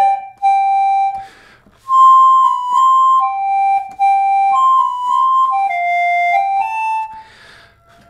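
Hohner Claviola played as a slow single-line melody: clear, clarinet-like reed notes one after another, with short gaps and a breath between phrases, about a second in and near the end.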